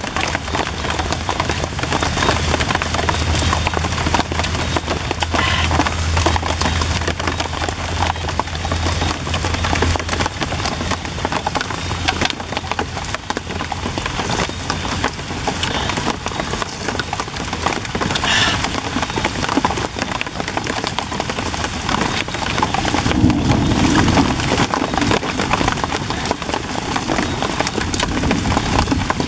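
Steady rain falling on leaves and grass, a dense hiss with many small drop taps throughout.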